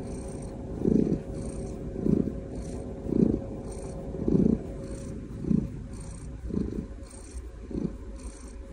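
Domestic cat purring contentedly while being held, the purr swelling and easing in a steady rhythm of about one swell a second with its breathing.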